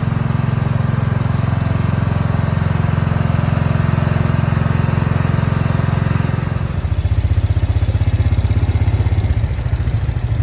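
Riding lawn mower's small engine running steadily. About seven seconds in, the sound changes to a lower, more strongly pulsing engine note.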